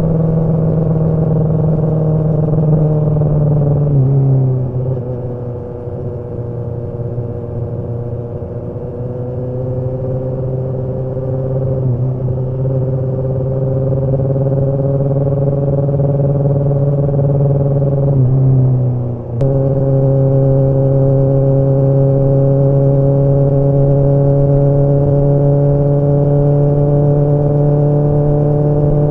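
Kawasaki ZX-10R's inline-four engine and exhaust under way, a steady pitched note. About four seconds in the note drops and softens, then climbs gradually. About two-thirds of the way through it dips briefly with a click, then runs steady again at its first pitch.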